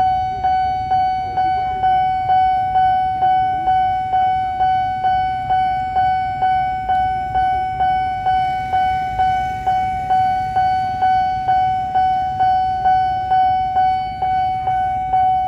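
Railway level-crossing warning bell ringing in even, repeated strokes about twice a second, each a single clear tone that dies away before the next: the crossing's alarm that a train is approaching with the barriers down.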